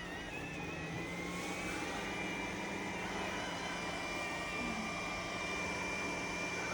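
iRobot Roomba s9+ robot vacuum running while cleaning: a steady suction-motor whine with a low hum, the whine rising in pitch over the first couple of seconds and then holding steady. Very noisy.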